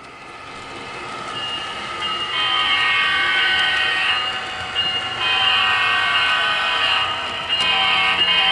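HO-scale model diesel locomotive's onboard sound system blowing its horn in long blasts, a chord of several tones, growing louder as the locomotive approaches.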